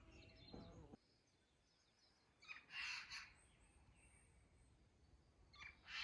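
Faint birds chirping: two short bursts of calls about three seconds apart, with a few fainter high whistles between them. A low background sound cuts off suddenly about a second in.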